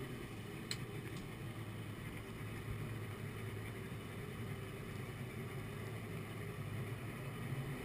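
Mercury 175 hp oil-injected two-stroke XR2 engine driving a Mercury Sport Jet, idling steadily in gear with a low hum. A couple of faint ticks come about a second in.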